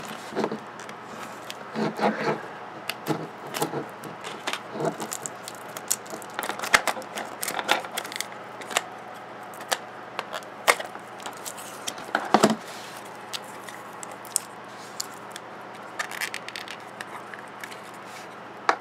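A plastic push-pop toy tube and its plastic wrapping being handled and opened: irregular crinkles, clicks and scrapes, with a few louder knocks.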